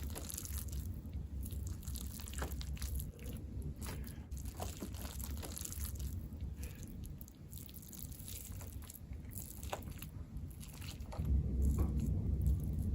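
Close-miked eating: a person chewing and biting food, with small wet mouth clicks and smacks, the chewing heavier for the first couple of seconds and again near the end.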